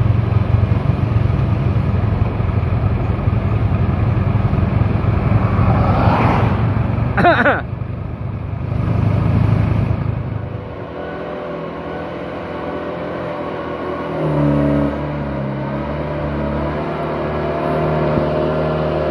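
Motorcycle and loaded old sugarcane truck engines running on an incline, with a steady rush of road and wind noise. There is a brief rising-and-falling sweep about seven seconds in. After about ten seconds the sound turns quieter into a steady truck engine hum, which steps in pitch about four seconds later.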